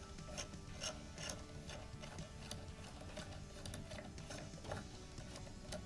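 Faint, irregular metal clicking, about two clicks a second, as a screw is turned by hand with a T-handle screwdriver into an aluminium folding-stock adapter.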